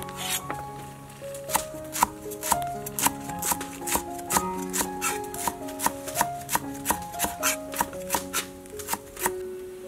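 Cleaver slicing through lemongrass stalks on a wooden cutting board, a steady run of knocks about three a second, with a short pause about a second in. Background music plays underneath.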